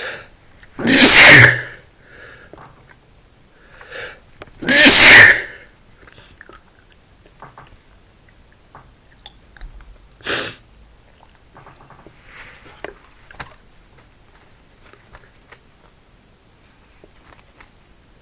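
A man sneezing from dust: two loud, full sneezes about four seconds apart, each after a short catching build-up. About ten seconds in comes a short, quieter burst, then faint breaths and small clicks.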